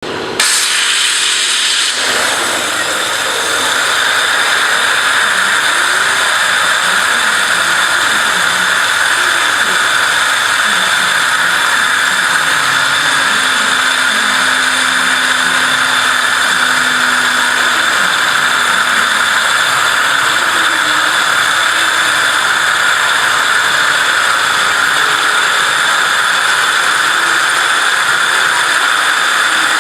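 Waterjet cutting machine's high-pressure jet hissing loudly and steadily as it cuts, starting abruptly just after the beginning, with a faint wavering hum underneath.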